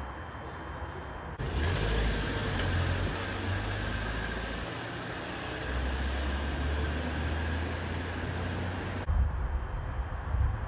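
Street traffic: a vehicle's engine running with road noise, starting abruptly about a second and a half in and cutting off abruptly near the end, leaving a quieter outdoor background.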